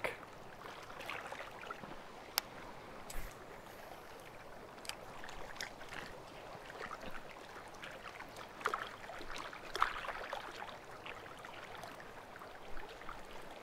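Faint lapping and trickling of small waves on lake water, with a few light clicks.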